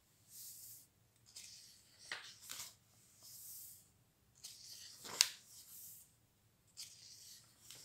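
Pages of a large leatherbound Bible turned by hand: a run of soft, short paper swishes and rustles, with one sharper crisp flick of a page about five seconds in.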